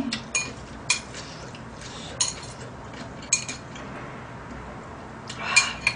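Chopsticks and a spoon clinking against a bowl while eating: a few separate sharp clicks, spaced irregularly about a second apart.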